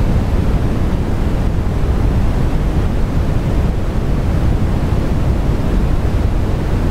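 Steady low rumble and hiss of background noise, even throughout with no distinct events.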